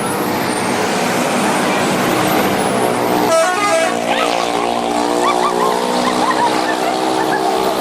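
Passing-bus traffic noise, then a bus's multi-tone 'telolet' horn sounding a long sustained blast from about three seconds in.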